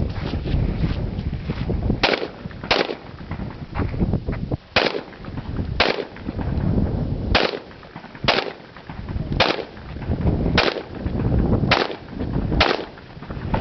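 Gunshots in a practical shooting course of fire: about ten sharp shots spaced roughly a second apart at an uneven pace, over low wind rumble on the microphone.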